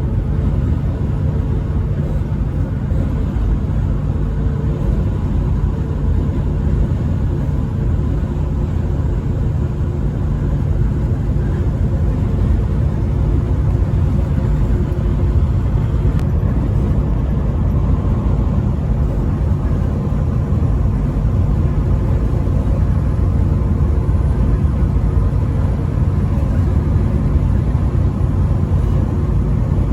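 Steady low rumble of engine and road noise from a vehicle driving at highway speed, unchanging throughout, with no horn sounded.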